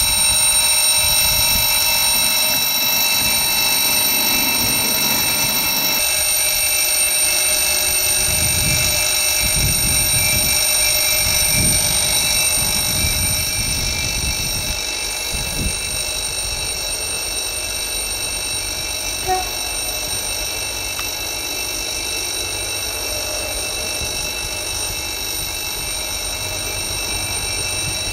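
Railroad level-crossing warning signal sounding continuously: a steady electronic ringing made of several high tones. Irregular low rumbles run underneath, strongest about a third of the way in.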